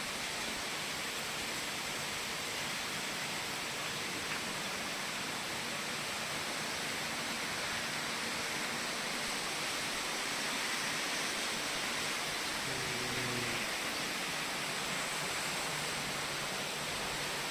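Heavy squall rain pouring down steadily, an even hiss of a sudden tropical downpour.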